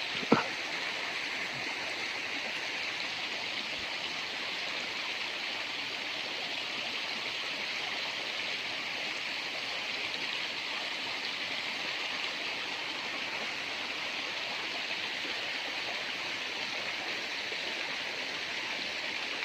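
Small river flowing steadily, an even rushing of water, with a short sharp knock just after the start.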